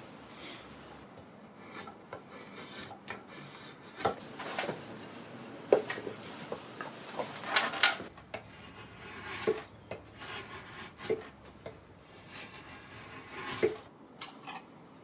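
Drawknife shaving a wooden spoon blank held in a spoon mule: irregular rasping strokes across the wood, with several sharp wooden knocks in between.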